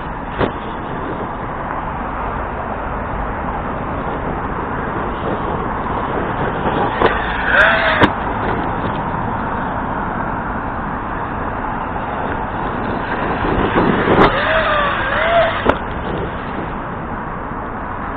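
Arrma Kraton RC truck's brushless motor whining up and down in pitch twice as it accelerates, about seven seconds in and again about fourteen seconds in, each spell ending in a sharp knock, over a steady rushing noise.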